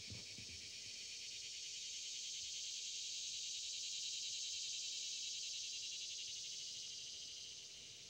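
A chorus of insects buzzing with a rapid, even pulsing. It swells to its loudest midway and fades near the end.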